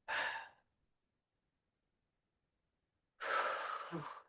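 A woman breathing hard through a plank hold: a short breath at the start and a longer one near the end, with dead silence between.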